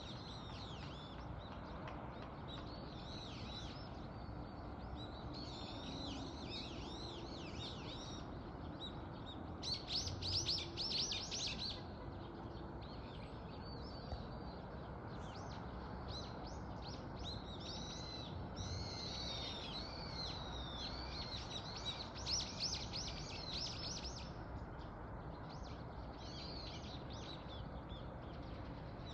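Small birds chirping and calling over a steady outdoor background hiss, with bursts of rapid, louder chirping about ten seconds in and again a little after twenty seconds.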